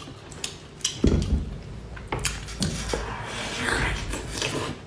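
Close-up eating sounds: biting, chewing and wet slurping of lobster claw meat coated in chili oil, with scattered sharp clicks.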